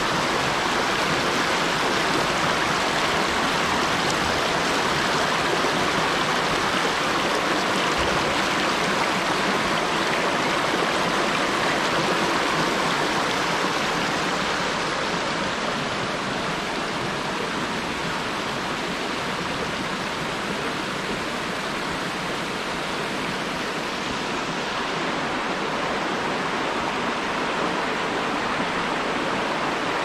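Steady rush of flowing water, even and continuous.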